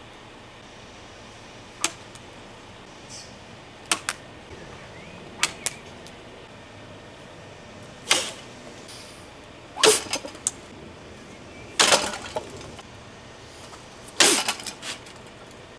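Sabre blades cutting through a hanging rope target in a series of quick strikes: a few short sharp cuts, some in close pairs, then four louder swishing cuts about two seconds apart.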